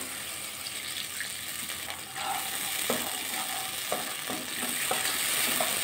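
Tomatoes frying in hot mustard oil in a kadai, a steady sizzle, while a wooden spatula stirs them and knocks against the pan several times in the second half.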